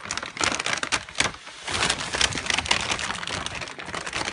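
A large paper bag rustling and crackling with dense, irregular crinkles as a cat scrambles and plays inside it.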